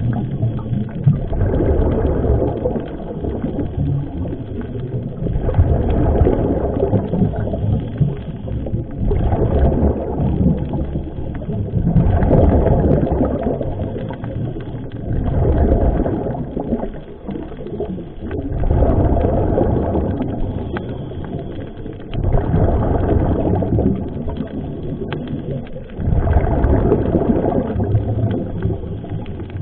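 A scuba diver breathing through a regulator underwater, with exhaled bubbles rumbling in surges every three seconds or so.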